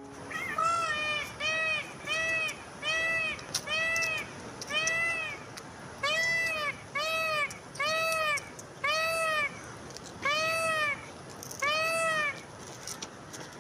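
Indian peafowl (peacock) calling: a series of about a dozen loud, half-second wailing calls, each rising and then falling in pitch, repeated about once a second and spacing out toward the end.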